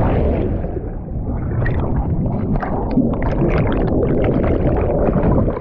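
Underwater sound from a submerged camera: a muffled, steady rumble of churning water with crackling and fizzing from clouds of air bubbles.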